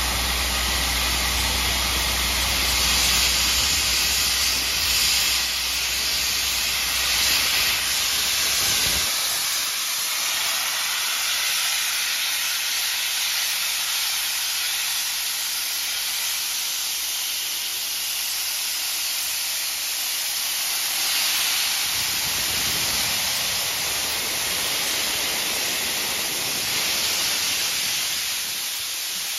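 Steam hissing steadily from LMS Jubilee class 4-6-0 steam locomotive 45596, swelling and easing as the engine stands wreathed in steam. A low hum underneath stops about nine seconds in.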